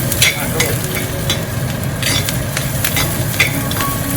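Chopped pearl onions sizzling as they sauté in hot oil in a pan, stirred with a spoon that scrapes and knocks against the pan several times. A steady low hum from the kitchen exhaust fan runs underneath.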